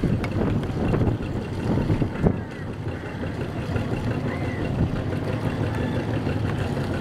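Boat engine running steadily with a low hum, with a few knocks in the first couple of seconds.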